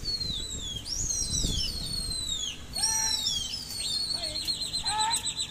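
Pigeon flyers whistling shrilly to their flock: repeated falling whistles, several overlapping, then a long warbling, quavering whistle near the end.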